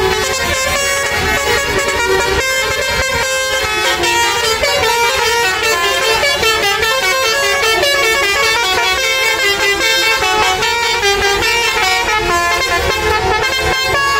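A tour bus's basuri, a multi-tone musical air horn, playing a fast melody of quickly changing notes, loud and without a break.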